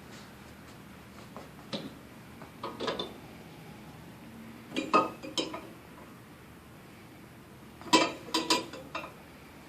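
Parts of a portable stand clinking and clanking as it is taken apart: four bursts of sharp knocks with a short metallic ring, the loudest about five seconds in and again near the end.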